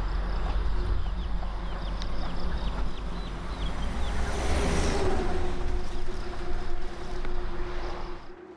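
Outdoor ambience with a steady low rumble. A run of short, falling high chirps comes in the first three seconds, and a steady low hum joins from about halfway, until the sound drops away near the end.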